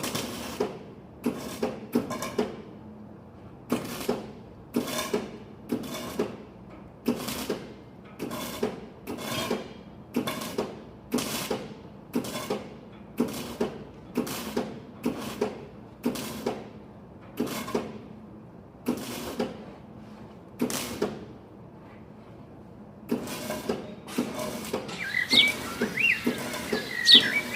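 Repeated sharp work strokes, about one a second and evenly paced, stopping a few seconds before the end. Birds chirp near the end.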